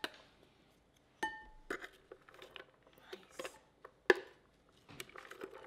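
A plastic spatula scraping and tapping inside a Vitamix 64-ounce plastic blender container as chopped carrots are knocked out into a glass bowl: scattered light taps and clinks, with a ringing clink about a second in and a sharp knock about four seconds in.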